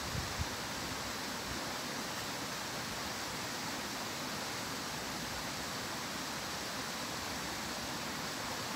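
Steady rushing of a stream, an even hiss without breaks.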